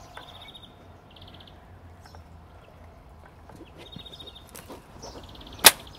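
A tranquilliser dart rifle fires once near the end, a single sharp crack, as the rhino bull is darted. Before it there is only a low outdoor background with short high chirping trills now and then.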